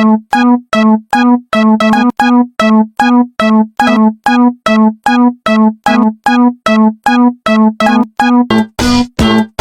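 Japanese railroad crossing electronic warning bell ringing its repeated ding-ding, about two and a half strikes a second. Near the end the dings come faster and overlap with a lower sound.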